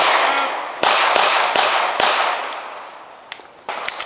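Handgun fire from several shooters at once: about eight uneven shots, the loudest five packed into the first two seconds and a few weaker ones near the end, each followed by a long echo.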